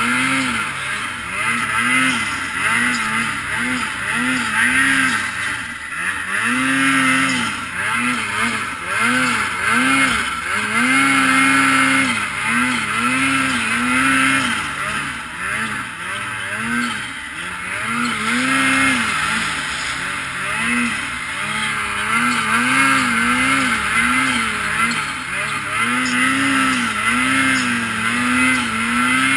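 2022 Ski-Doo Freeride 850 Turbo snowmobile's two-stroke engine revving up and falling back over and over as the throttle is worked through deep powder, over a steady rush of track and snow noise.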